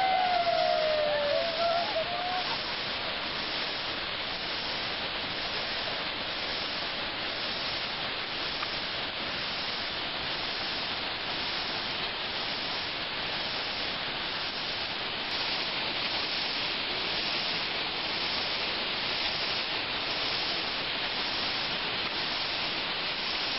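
A large mountain waterfall plunging into its pool, heard as a steady, unbroken rush of falling and churning water.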